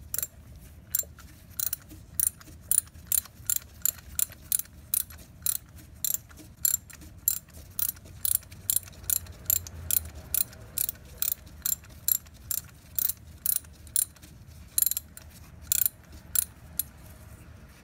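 Ratchet wrench clicking as a spark plug is worked loose from the Mazda RX-8's rotary engine: sharp clicks, two or three a second, in runs with brief pauses.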